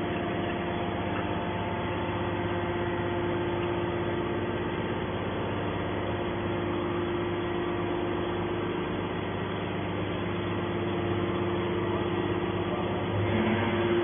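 Hydraulic scrap-metal baler running: its power pack gives a steady mechanical hum with a constant tone while the ram pushes a compressed bale of scrap out of the press chamber.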